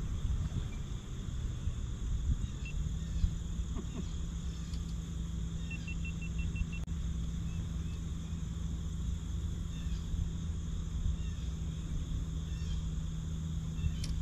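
Boat motor running with a steady low hum that shifts slightly in pitch about two and a half seconds in. A short run of about seven quick high pips sounds about six seconds in.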